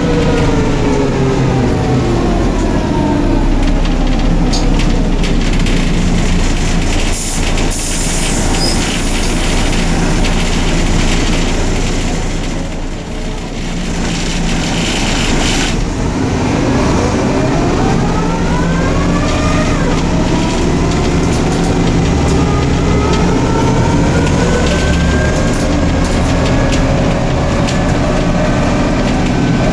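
Engine and transmission of a Neoplan/ELBO N4007 city bus, heard from inside the cabin. The whine falls as the bus slows, with a short hiss about seven seconds in. It then rises again as the bus pulls away, dropping once around twenty seconds in as it shifts up.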